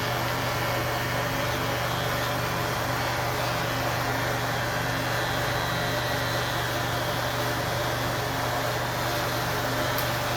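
Small electric motor running steadily, a constant low hum from a barber's clipper or blade-sharpening machine.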